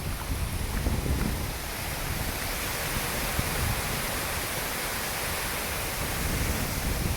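Waterfall rushing, a steady hiss of falling water.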